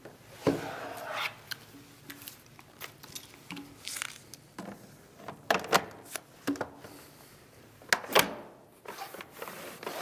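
Scattered clicks and knocks from a double-hung window's lower sash being handled, tilted back into its frame and slid up in its tracks.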